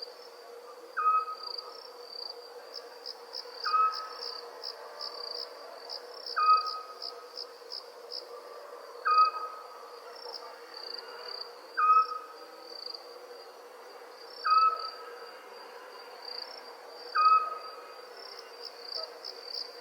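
Night ambience of crickets trilling steadily in pulses. Over it, a short whistled call, loudest of all, repeats about every two to three seconds.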